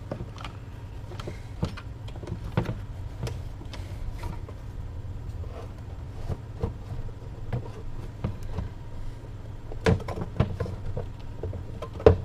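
The chassis of a Zenith G500 shortwave radio being worked out of its case by hand: scattered clicks, knocks and scraping as it catches on something, with two louder knocks about ten seconds in and just before the end. A steady low hum runs underneath.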